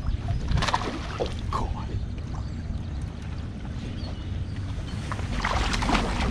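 Water splashing at the side of a bass boat as a hooked bass thrashes at the surface near the bow. There is a burst of splashing about a second in and a louder one near the end, over a steady low rumble.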